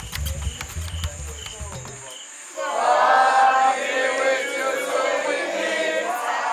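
Music with a drum beat cuts off about two seconds in, followed by many voices together, loud and overlapping, like a crowd singing or chanting.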